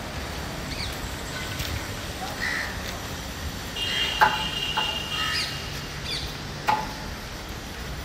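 Crows cawing now and then over outdoor street background noise. Two sharp knocks, one about four seconds in and one near the end, are the loudest sounds, and a brief high steady tone sounds in the middle.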